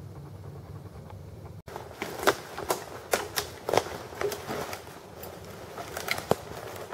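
Footsteps through dry leaf litter and undergrowth: an irregular run of crunches and twig snaps, beginning about a second and a half in after a steady low rumble.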